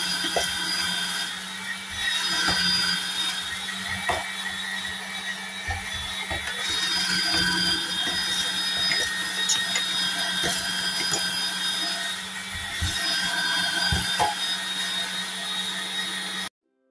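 Electric kitchen machine with a grating drum attachment running, shredding raw peeled potatoes: a steady motor hum under a harsh grating noise that swells and eases as potatoes are pushed in, with occasional clicks. It cuts off abruptly near the end.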